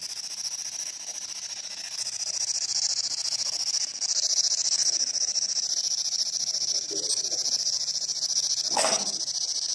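P-SB11 spirit box sweeping radio frequencies: a steady hiss of static with brief broken snatches of radio sound. Near the end comes a snatch that sounds like English, then a short sharp burst about nine seconds in. The ghost hunter takes these fragments for a spirit trying to communicate.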